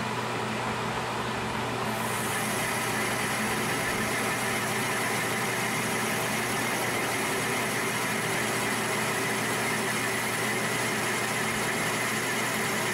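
Metal lathe running while a parting tool cuts into a spinning 1144 Stressproof steel bar, throwing chips: a steady machine hum with a high cutting hiss that comes in about two seconds in and holds. The steel is parting cleanly; it "cuts really well".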